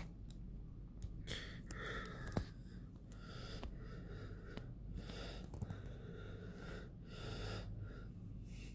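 A person breathing close to the microphone, about one breath every two seconds. There is a sharp click a little over two seconds in and a lighter one at about the middle.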